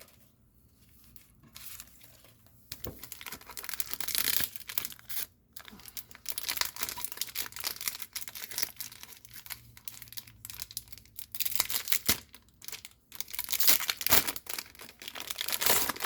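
Paper sticker-pack wrapper crinkling and tearing, with stickers being handled, in uneven rustling spells after a quiet first couple of seconds.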